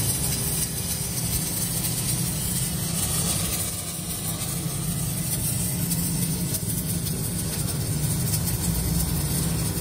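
Stick (shielded metal arc) welding on a steel truck wheel rim: a steady, loud crackling hiss of the arc burning as the electrode is run along the joint, over a steady low hum.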